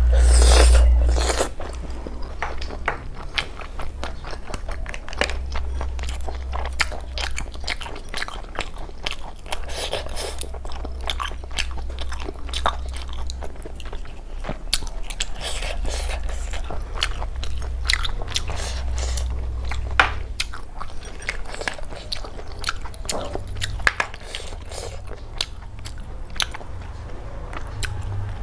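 Close-miked eating of snails in curry: sucking the meat out of the shells and wet chewing, with many small clicks and smacks throughout and a louder suck right at the start.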